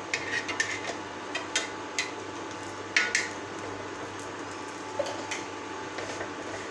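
Steel spoon tapping and scraping against a griddle and the pav buns as ghee is spread on them: a string of light clicks in the first two seconds, the sharpest one about three seconds in, and two more around five seconds in.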